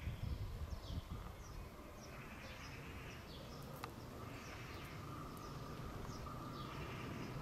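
Low rumble of a Trenitalia Pop electric multiple unit (Alstom Coradia Stream) rolling slowly into a station over curved track. A faint steady whine comes in about halfway and the rumble grows slightly. Birds chirp over it in short, repeated downward calls.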